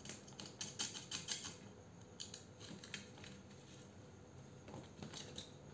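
Faint, scattered light clicks and scrapes as a cordless drill and its wire test leads are handled and connected, denser in the first second or so.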